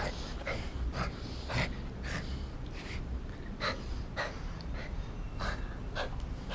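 A dog's short, irregular huffing breaths and snorts, one or two a second, while it play-bites a hand, over a low rumble.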